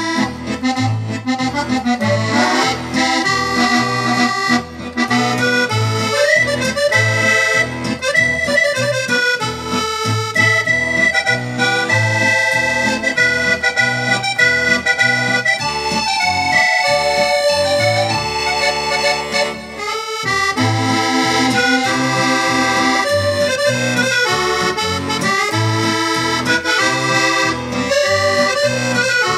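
Roland digital piano accordion playing a tune: a melody on the right-hand keys over a steady, evenly repeating bass-and-chord accompaniment, with a short stretch of held notes about two-thirds of the way through.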